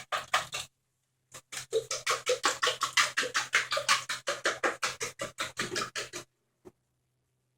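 A spoon stirring and scraping a thick chicken, pea and cracker-crumb mixture in a pan, in quick rhythmic strokes of about six a second that stop about six seconds in.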